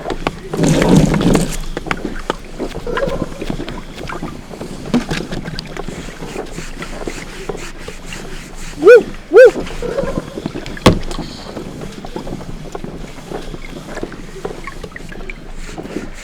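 Water sloshing and splashing, with a loud splash about half a second in. About nine seconds in there are two short, high squeaks close together, and a sharp click follows a second and a half later.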